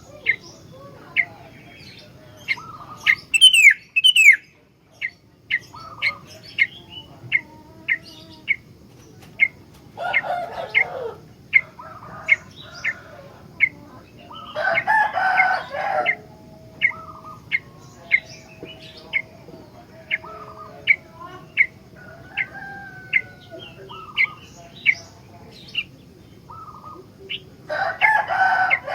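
Sooty-headed bulbul (kutilang) singing: short, high chirps repeating about one and a half times a second, broken several times by louder, longer call phrases.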